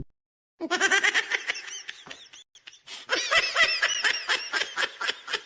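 Laughter sound effect: rapid, high-pitched laughing in two bursts with a short pause between them. The second burst thins out into separate pulses as it fades.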